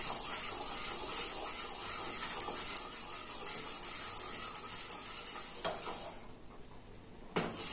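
Metal spoon stirring a thickening milk and sago mixture in a steel pan, scraping around the bottom in a steady rhythm of about three strokes a second. The stirring stops about six seconds in, and a sharp knock follows near the end.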